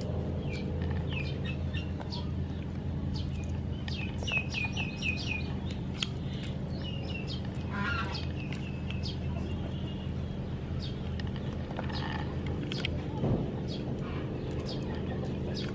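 Birds chirping in quick runs of short, falling notes, over a steady low hum.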